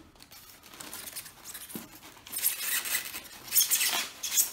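Plastic quadcopter drone being worked out of its polystyrene foam packaging insert: rustling and scraping of the plastic body against the foam, with several louder bursts in the second half.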